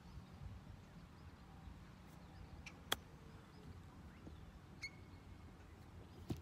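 A single crisp click of a golf club striking the ball on a short chip shot, about three seconds in, over a low steady background rumble.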